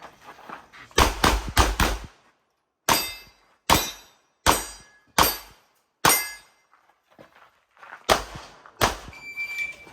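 Pistol fire during a practical shooting stage: a quick string of four shots about a second in, then five shots spaced a little under a second apart, and two more near the end. Several of the shots are followed by a brief ringing.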